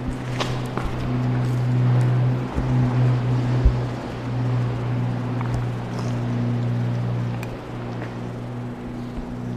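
A steady low engine drone, with a few short knocks scattered through it.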